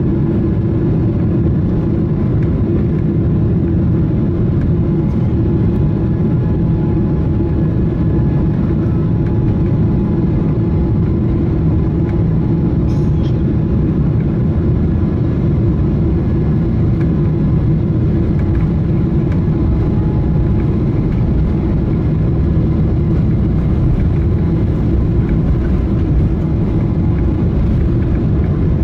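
Steady cabin noise inside a Boeing 777-300ER airliner: a deep, even rumble of engines and air that holds level throughout, with a faint click about halfway through.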